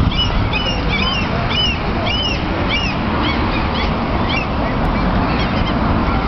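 Birds calling over and over, several short calls a second, thinning out after about four seconds, over a steady low rumble.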